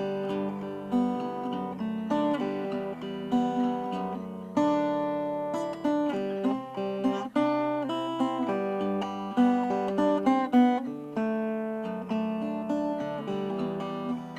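Acoustic guitar being played, a steady flow of plucked notes and chords ringing over one another.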